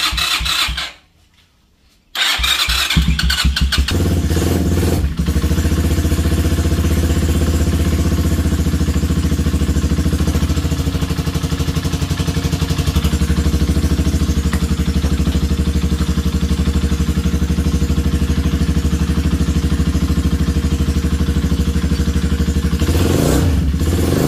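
Honda CB250 engine cranked on its electric starter. After a brief stop about a second in, it cranks again, fires about three seconds in and settles into a steady cold idle. The idle has no knock; this is a freshly rebuilt engine with a new cam chain, chain guides and valves, and the knocking it had on cold starts is gone.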